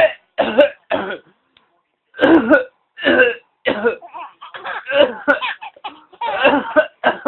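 A man's fake coughing and choking sounds, repeated in short bursts, with a baby laughing along. The bursts come closer together from about four seconds in.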